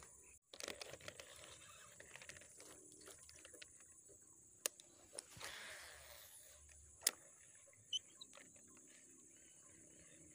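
Faint sounds of a baitcasting rod and reel being cast: a few sharp clicks and a brief whir about five seconds in, over a steady high-pitched hiss.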